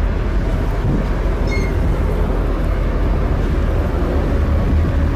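Steady low rumble of a harbour tug's diesel engine working alongside a ship, with wind buffeting the microphone.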